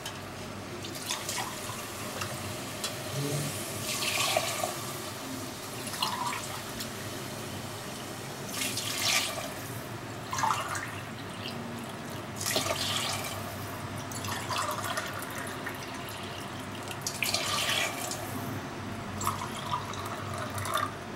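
Water poured cup by cup into an aluminium pressure cooker of fried rice, splashing in a series of separate pours spread a couple of seconds apart.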